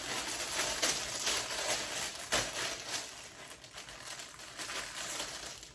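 Rustling handling noise with a few soft knocks, quieter after about three seconds.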